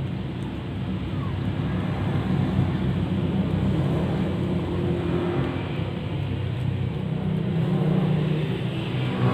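A steady low rumble that fluctuates slightly in level throughout.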